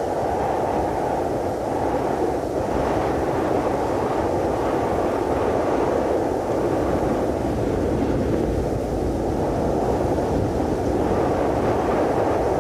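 Cold wind sound effect: a steady, unbroken rush of wind noise, heaviest in the low and middle range and muffled in the highs.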